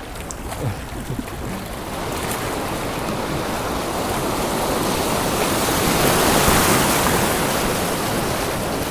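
Rushing river water in a rapid: a steady hiss of moving water that swells to its loudest about six or seven seconds in, then eases a little.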